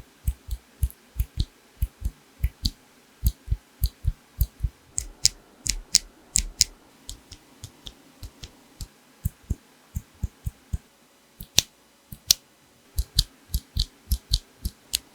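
Mechanical keyboard fitted with tactile switches being typed on, single keystrokes at an uneven pace of about two to four a second, each a short clack with a deep bottom-out, with brief pauses in the typing.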